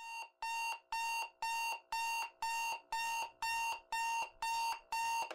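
Electronic alarm beeping: a steady repeating beep of one pitched tone, about two beeps a second, stopping abruptly near the end.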